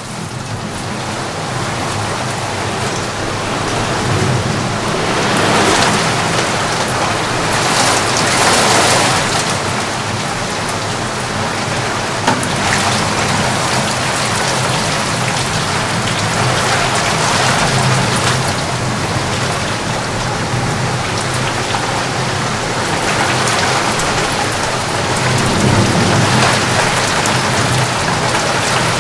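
Heavy rain falling steadily, swelling and easing several times.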